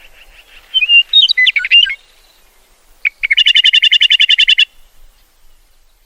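Meadowlark song: a short phrase of whistled notes, then a rapid chatter of about ten notes a second lasting a second and a half.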